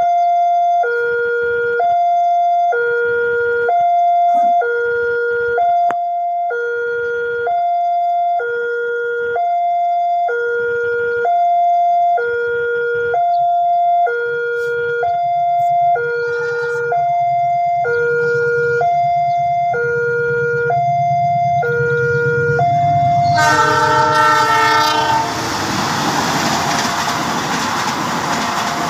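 Railway level-crossing warning alarm sounding its two-tone signal, a higher tone alternating with a lower one about once every two seconds, while the rumble of an approaching train builds beneath it. Near the end a diesel locomotive's horn blows for about two seconds, then the passing train's steady rushing noise takes over.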